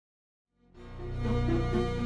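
Background film score fading in after about half a second of complete silence: a low sustained drone with a slow line of held notes above it.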